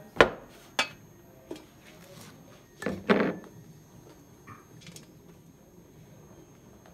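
A few short knocks of a glass bowl on a metal plate as fried rice is unmolded, with a louder, longer clatter about three seconds in and a couple of faint clinks after.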